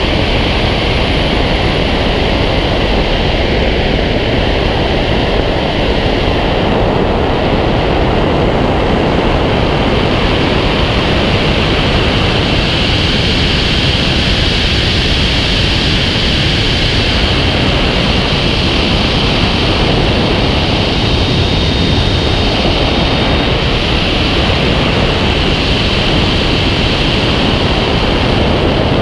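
Steady rush of wind over an action camera mounted on the wing of a Fox glider in flight. There is no engine, only airflow noise at flying speed.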